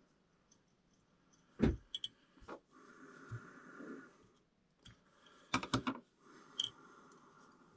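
Fly-tying handling sounds as thread is wound onto a hook held in a vise: a few sharp clicks and taps of the metal bobbin holder and tools, the loudest about one and a half seconds in and a quick cluster near six seconds, with soft rubbing between them.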